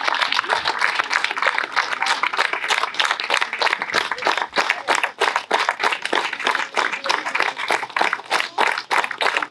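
Audience applauding: many hands clapping, dense at first and thinning to more separate claps after a few seconds.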